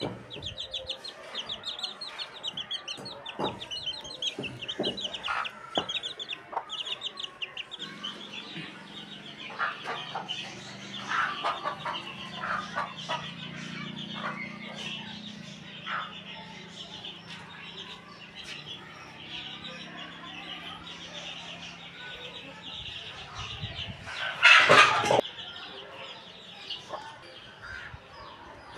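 Chickens clucking, with rapid high chirping and scattered sharp knocks of fired clay bricks being set in place. One loud burst about 24 seconds in.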